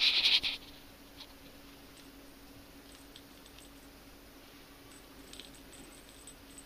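A brief loud rustle in the first half second, then a few faint light taps of a small ball and a cat's paws on a tile floor, over a steady low hum.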